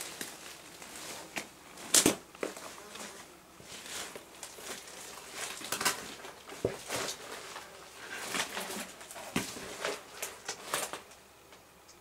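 Footsteps crunching on debris and leaves, mixed with brambles and plants rustling and snapping, as someone pushes past them and steps down into a brick stairwell. The crunches come irregularly, the loudest about two seconds in, and stop near the end.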